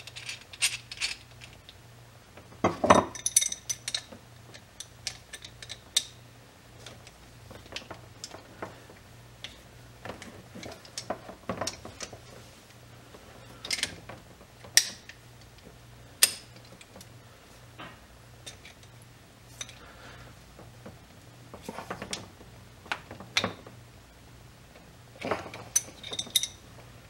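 Adjustable steel wrenches clicking and knocking against a brass pressure-washer quick-connect fitting as it is tightened onto its threaded mate: scattered, irregular metal clicks, loudest about three seconds in. A faint steady low hum runs underneath.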